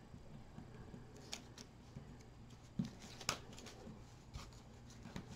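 A few faint ticks and scrapes of chipboard strips and a slim metal craft tool being handled on a tabletop, the sharpest one a little past the middle.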